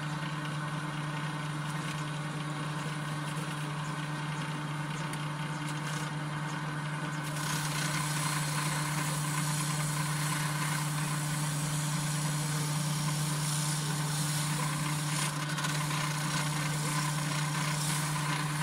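Electric grinder running steadily with a low hum while a small metal part is worked against the wheel. About seven seconds in, a brighter, louder hiss of abrasive on metal sets in and continues.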